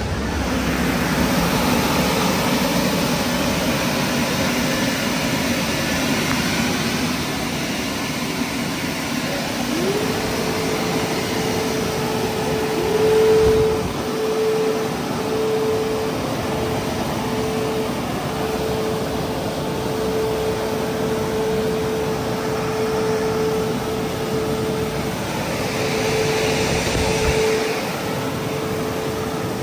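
Christ Genius Vitesse automatic car wash running: a steady loud rush of machinery, with a motor whine that glides up and starts about ten seconds in, wavers, and cuts out near the end.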